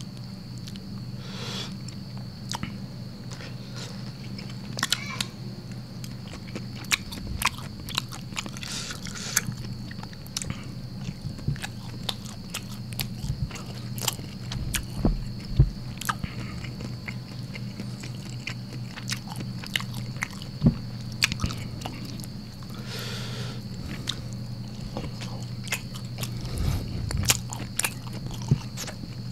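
Close-miked eating by hand: chewing and biting on rice and side dishes, with many short wet mouth clicks and smacks. A steady low hum and a faint steady high whine run underneath.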